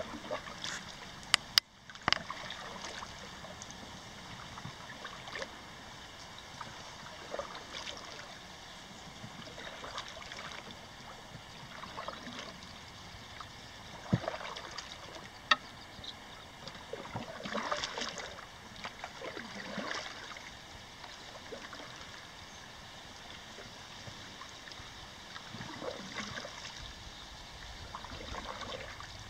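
Canoe paddle strokes in calm water: soft splashing and dripping, with trickling as the blade lifts out. A few sharp knocks stand out, two near the start and two around the middle.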